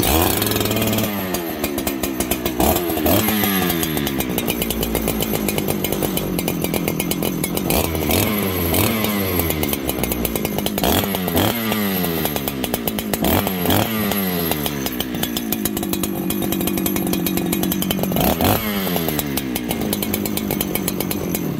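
Farmertec 288 aftermarket two-stroke chainsaw, run without bar and chain, catching on the pull and running. The throttle is blipped again and again, each rev falling back to a fast idle, with a steadier idle stretch about two-thirds of the way through.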